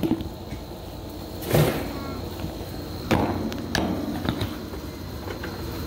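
A heavy fabric grill cover being shaken out and handled, giving a few flapping thuds: one about one and a half seconds in, then two more around three and nearly four seconds in.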